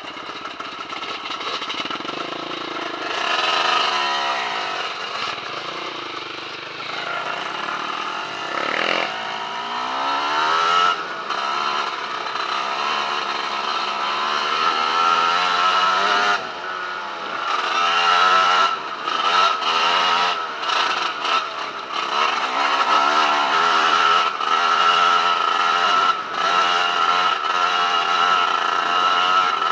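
Dirt bike engine running under the rider, revving up and down with the throttle. For the first ten seconds or so the pitch sweeps up and down; after that it settles into a steadier drone.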